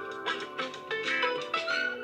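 Android phone ringtone playing: a bright melody of quick, short notes.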